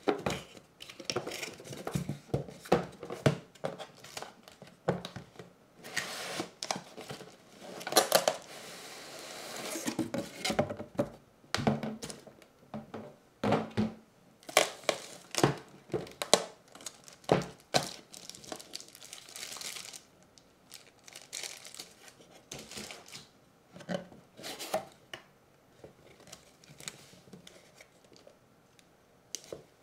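Unboxing a shrink-wrapped cardboard kit box: the box is handled and knocked on the desk, and its plastic wrap is torn off and crinkled before the box flaps are opened. It comes as an irregular run of sharp knocks and clicks with longer stretches of crackling, thinning out near the end.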